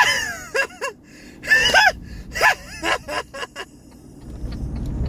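A person laughing hard in a run of short, gasping, high-pitched bursts that fall in pitch, easing off into a lull about three and a half seconds in.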